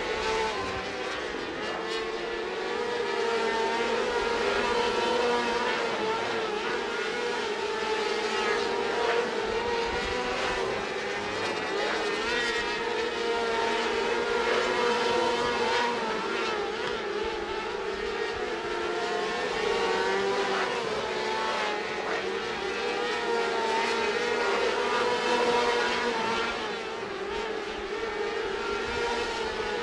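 A pack of 600cc micro sprint cars racing, several engines running at high revs together, their pitch rising and falling as they go around the track.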